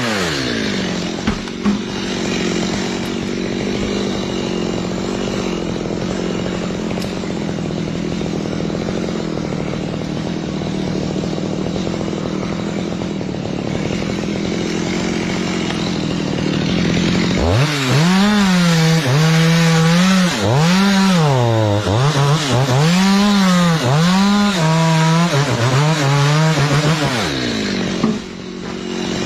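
Chainsaw engine running at a steady high speed for a long stretch, cutting into a coconut trunk. From a little past halfway, it revs up and down over and over, about once a second, then drops back near the end.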